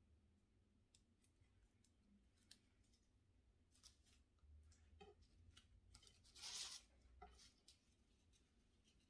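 Faint crackling and light clicks of crisp baked phyllo pastry being cut and handled with a knife over a wooden board, with one louder, brief crunch about six and a half seconds in.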